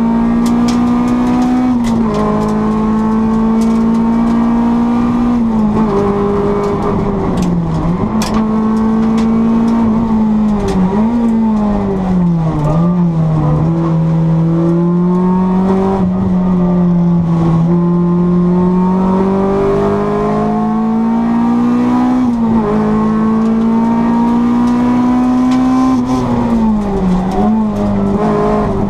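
Honda Civic 1600's four-cylinder engine running hard at high revs, its pitch holding steady for stretches and dropping and climbing again several times as the driver lifts off, shifts and accelerates.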